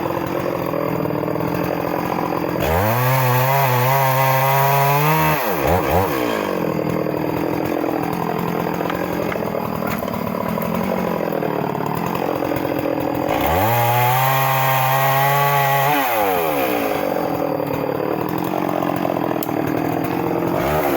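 Two-stroke chainsaw cutting wood. The engine is opened to full throttle about 3 s and 13 s in and held there for a couple of seconds each time, then drops sharply in pitch. In between it runs at a lower, wavering speed.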